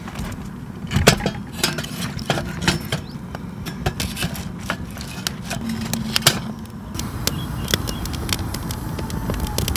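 Split kindling crackling and popping as it catches in a small steel twig stove, with wooden clacks as sticks are set into it. A steady low rumble runs underneath.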